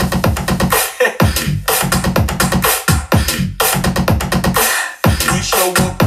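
Electronic dance music with a heavy bass beat and quick falling pitch sweeps, played through a portable Bluetooth party speaker as a sound-quality test.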